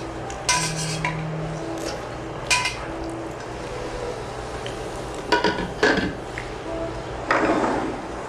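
Eating utensils clinking against bowls: several separate clinks, each with a short ring, and a longer rustling, scraping stretch near the end.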